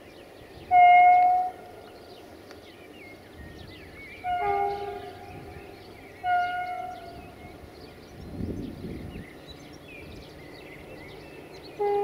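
GM class 64 diesel locomotive's air horn sounding three separate chord blasts: a loud one about a second in, then two more around four and six seconds in. Birds chirp throughout.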